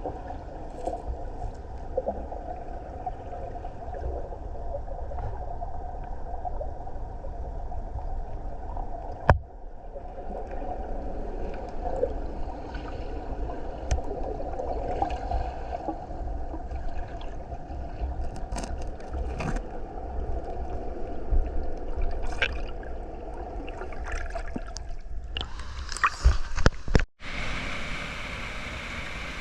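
Steady rushing, gurgling water with scattered clicks and knocks. It breaks off abruptly twice, and near the end it gives way to a brighter rushing with wind on the microphone.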